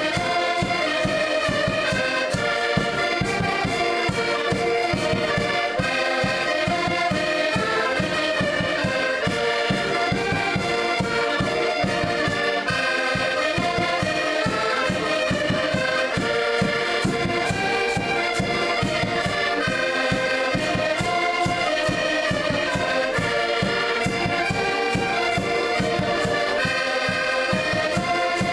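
An ensemble of diatonic button accordions (Portuguese concertinas) playing a traditional tune together, with chords and melody over a steady low beat.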